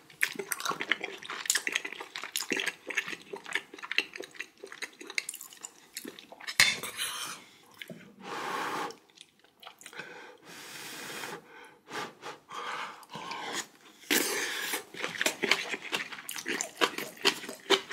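Close-up eating sounds: wet chewing and mouth noises from someone eating spicy kimchi stew with rice. Spoon and dish clinks are among them, with a sharp click about six and a half seconds in, and several loud breaths.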